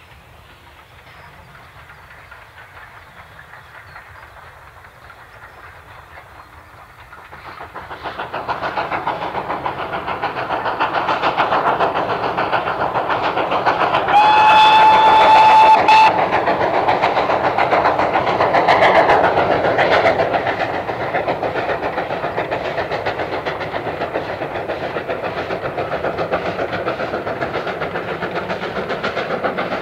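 Two GWR steam locomotives double-heading a passenger train, a Castle-class 4-6-0 and a 2-8-0 tank engine, working hard with a rapid stream of exhaust beats. The beats swell suddenly about a quarter of the way in as the train comes closer. A steam whistle sounds once near the middle for about two seconds.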